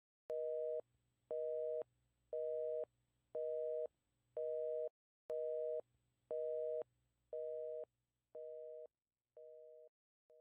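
Telephone busy signal: a two-tone beep, half a second on and half a second off, about once a second, the last few beeps fading away.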